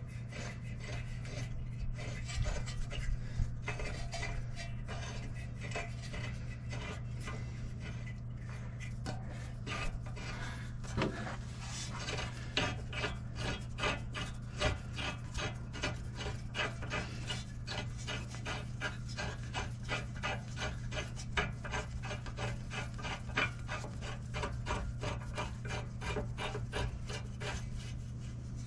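Repeated rasping strokes of a hand tool scrubbing a part, coming thicker from about ten seconds in at roughly two to three strokes a second, over a steady low hum.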